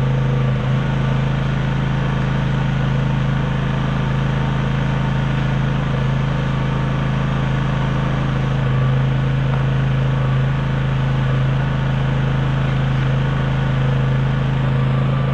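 Honda EX650 portable generator's small four-stroke engine running steadily with an even, unchanging hum, choke off, after a cold start following months of standing.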